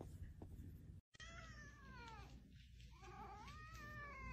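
Domestic cat meowing: a drawn-out meow falling in pitch a little after a second in, then a second, longer, wavering meow.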